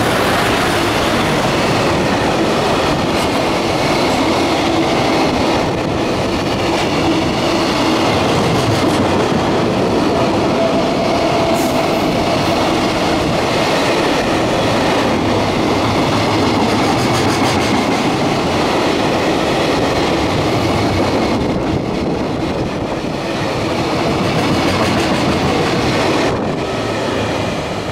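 JR Freight EF210 electric locomotive and a long train of container wagons passing close at speed: a loud, steady rolling rumble of steel wheels on rail with clickety-clack from the rail joints.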